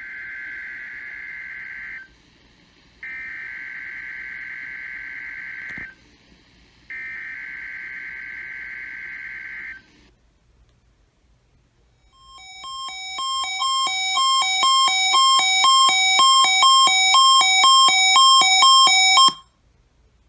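NOAA Weather Radio SAME digital header: three screeching data bursts, each about three seconds long with a second's gap between them, starting the weekly warning-alarm test. Then a buzzy two-pitch electronic alert beeps about three times a second, growing louder for about seven seconds and cutting off abruptly, as the warning alarm is set off.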